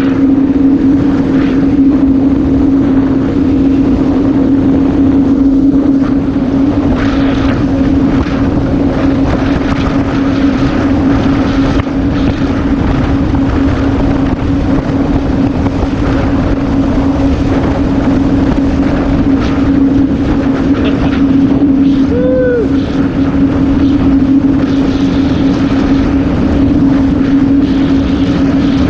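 Yamaha VX110 WaveRunner's four-stroke engine running at a steady pitch under way, with the rush of wind and water over the microphone.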